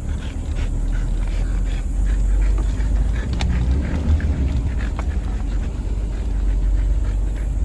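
Pickup truck engine running with a steady low rumble, with faint scattered clicks over it.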